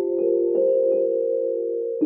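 Background music: soft mallet-instrument chords, vibraphone-like, with notes struck every half second or so.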